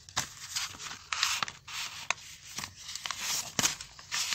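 Paper rustling and rubbing as hands handle and smooth the pages of a grid-ruled notebook, in a quick run of irregular scraping bursts with a few sharp crackles.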